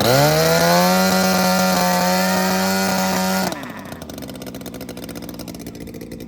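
DLE 20 two-stroke gasoline engine on a model plane running up to a high, steady note for about three seconds, then cutting out suddenly. Its stalling is blamed on a defective ignition module.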